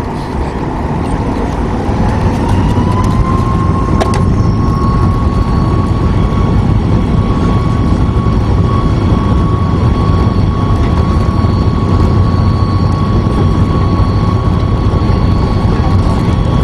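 Boeing 737 MAX 8's CFM LEAP-1B turbofan engines at takeoff thrust, heard from inside the cabin. A whine rises in pitch over the first few seconds as the engines spool up, then holds steady over a loud rumble during the takeoff roll.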